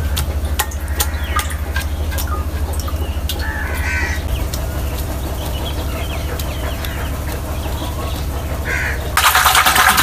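Birds calling in the background over a steady low rumble, with scattered faint clicks. About a second before the end a loud, even hiss sets in.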